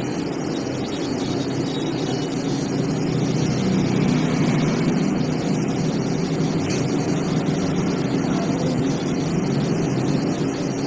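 A steady low mechanical hum that holds one pitch, over a constant background hiss.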